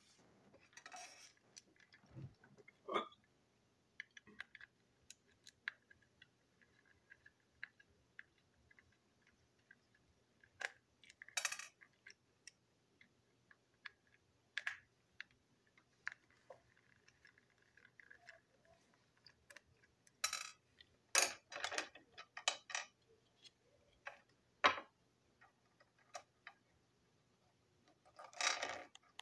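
Irregular small clicks and taps of a plastic TrackMaster toy coach being taken apart by hand, its chassis, wheelsets and a tiny screw knocking on the desk, with a small screwdriver being handled. A denser run of sharper clicks comes about two thirds through.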